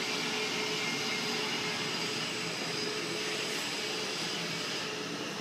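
Steady mechanical whir of running machinery with a faint low hum underneath.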